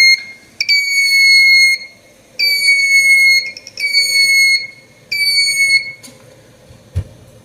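Piezo buzzer of an Arduino flame-detector alarm sounding, set off by a lit match held to the flame sensor: a high, steady beep that sags slightly in pitch at each start, going on and off about four times in roughly one-second beeps with short gaps, then stopping. A soft thump about seven seconds in.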